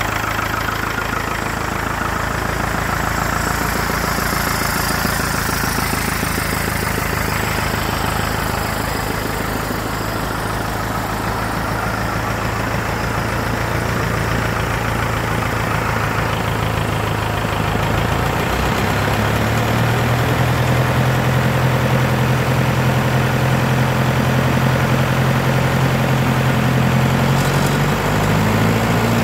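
David Brown 25D tractor's four-cylinder diesel engine running steadily at low speed; about two-thirds of the way through its speed rises a little and holds there.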